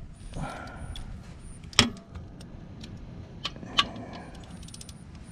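A few sharp metallic clicks and knocks of a hand tool being handled and set on a car's oil drain plug, the loudest about two seconds in and two more near four seconds, with quiet stretches between.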